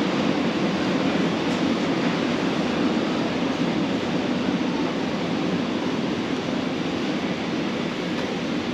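Steady rumbling background noise of a large warehouse store's interior, with no distinct events standing out.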